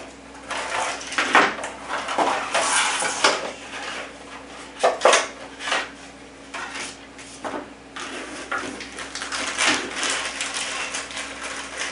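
Clear plastic clamshell packaging being pried apart and handled, with irregular crackles, clicks and light clatter. Near the end comes the rustle of a small plastic bag of parts.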